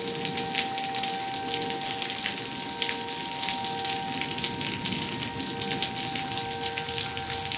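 Steady rain falling, with outdoor tornado warning sirens sounding a held tone that swells and fades slightly.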